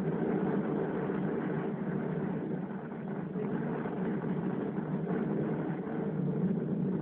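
Steady low droning rumble, like a motor running, unchanging throughout.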